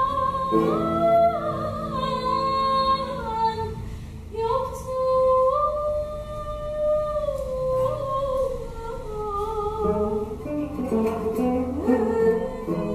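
Female voice singing a gazel in makam Sultaniyegâh, in long held notes that slide and bend between pitches, with a plucked Turkish tanbur accompanying.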